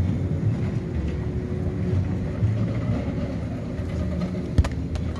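Steady low outdoor rumble, with one sharp thump about four and a half seconds in as a child's foot strikes a football.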